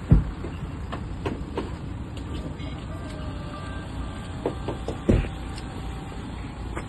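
Two heavy thumps about five seconds apart, with lighter knocks between them, from people working at the open door of a rescue vehicle, over a steady low rumble of vehicle engines running.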